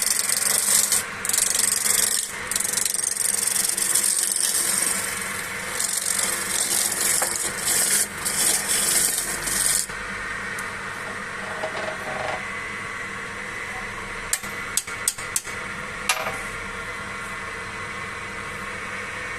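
A spanner used as a turning tool scraping a spinning log on a wood lathe, a rough rasping noise that stops about halfway through. The lathe then keeps running more quietly, with a few sharp clicks a little later.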